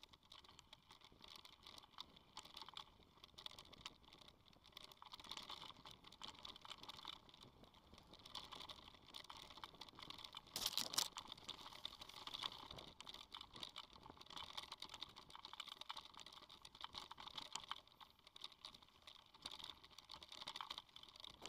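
Mountain bike riding over a rough dirt trail: a continuous faint, irregular rattle and crunch of tyres on gravel and the bike shaking, with a louder jolt about halfway through.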